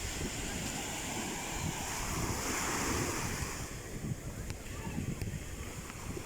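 Sea waves washing onto the shore, swelling louder about halfway through and then easing off, with wind buffeting the microphone.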